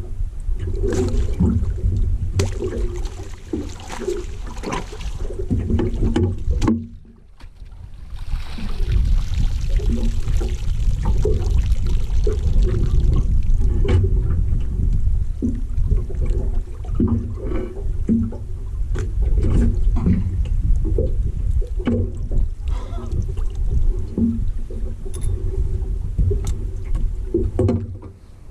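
On-board noise from a small fishing boat on the water: a heavy low rumble with scattered knocks and water sounds. It drops out briefly about seven seconds in, then resumes.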